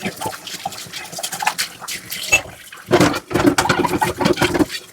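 Dishes being washed by hand in a sink: scrubbing and light knocks of crockery, then a louder stretch of about two seconds of water and scrubbing that stops shortly before the end.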